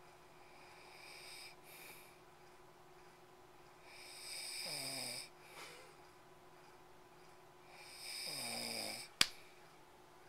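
A man snoring in his sleep: one faint snore, then two louder snores about a second long, a few seconds apart. Near the end, just after the last snore, comes a single sharp smack.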